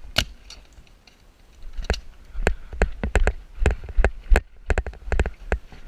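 Paintball markers firing: a quick exchange of a dozen or so sharp pops at an uneven pace, most of them packed into the last few seconds.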